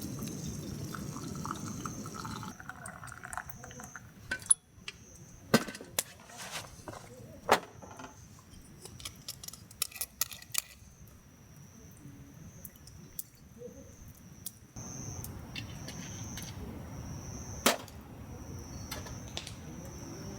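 Insects trilling steadily at a high pitch, with scattered sharp clicks and knocks from handling camp gear and tableware; a low rushing sound comes in at the start and again near the end.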